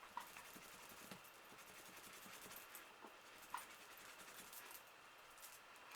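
Near silence: a makeup brush scratching faintly, with a few small soft clicks.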